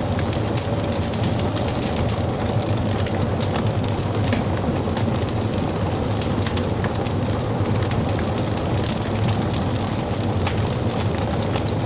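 Wood fire burning: a steady low rumble of flames with frequent small crackles and pops of the burning wood.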